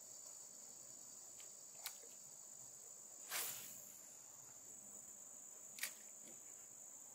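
Crickets chirring steadily at a high pitch. About three seconds in there is a brief rushing swish, and there are two short sharp clicks, one near two seconds and one near six.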